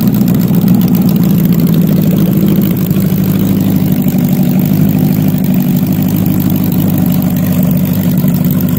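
Custom motorcycle engine idling steadily, with a rapid, even pulse and a deep, level tone.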